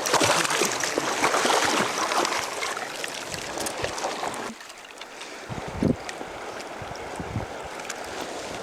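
River water rushing and splashing close to the microphone, dropping abruptly about halfway through to a quieter, steadier flow with a few low bumps.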